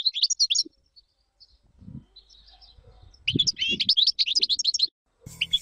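European goldfinch song: quick, high twittering phrases of fast rising and falling notes. It comes in two bursts with a pause of about two and a half seconds between them.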